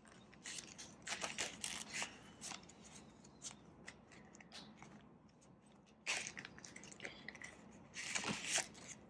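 Paper cash envelopes and plastic binder pages rustling and crinkling as they are handled and flipped, with scattered soft clicks. The handling is louder about a second in, again around six seconds, and near the end.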